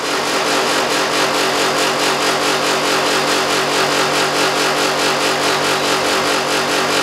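Split air-conditioner outdoor unit's compressor and fan running as a pump, drawing the refrigerant out of a freon cylinder, with a steady hum and a fast, even pulsing. It winds down at the very end as the unit is switched off.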